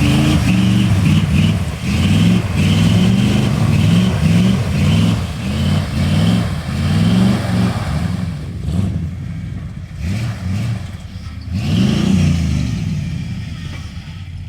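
A vehicle's engine revved hard in quick repeated surges, its pitch climbing and dropping again and again, as if rocking to get free of mud. It eases off about eight seconds in, with one more rev near twelve seconds.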